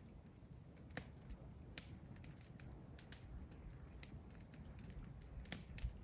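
Faint crackling of a wood campfire: irregular sharp pops and snaps of burning wood, several a second.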